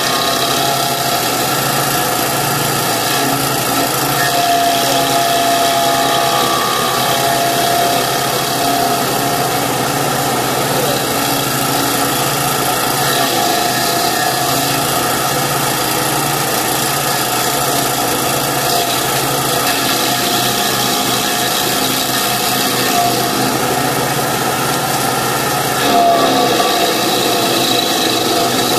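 Kanga mini loader's engine running steadily with its stump grinder attachment, briefly louder near the end.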